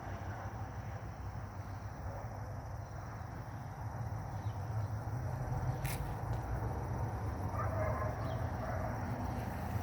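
Outdoor ambience: a steady high insect drone, likely crickets, over a continuous low rumble. A single sharp click comes about six seconds in.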